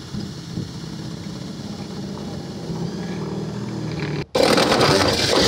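Electric drill running with its bit boring a hole into the truck body, the motor's whine steady and slowly growing louder. About four seconds in, after an abrupt break, a much louder harsh rasping of the bit grinding against the hole begins.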